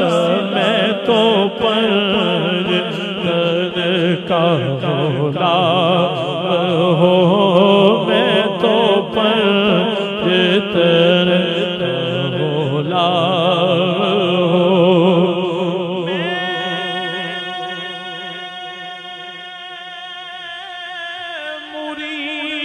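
A male naat reciter singing unaccompanied into a microphone over a PA system, in a long ornamented line with wavering vibrato. About 16 seconds in he settles on one long held note that slowly fades.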